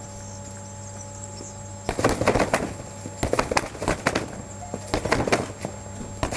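Boxing gloves slapping a free-standing Wavemaster punching bag in quick light combinations: a series of sharp hits in bursts of several punches, starting about two seconds in.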